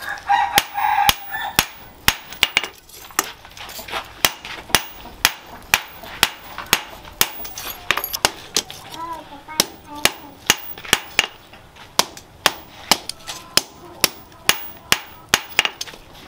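Hand hammer striking a small piece of hot steel held in tongs on a steel post anvil, a steady run of sharp metallic blows at about two a second with lighter taps in between.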